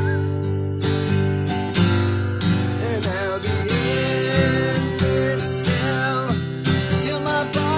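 Acoustic guitar strumming chords steadily in a country song's instrumental break. A wavering lead melody line glides over the chords through the middle.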